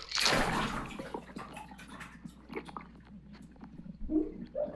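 Water splashing and churning in a swimming pool, filmed underwater: a splash in the first second, then faint bubbling crackles. A brief voice sounds about four seconds in.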